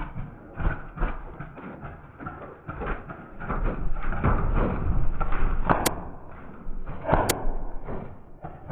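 Irregular thumps, knocks and rustling from a player moving with the camera on him, with two sharp cracks about six and seven seconds in.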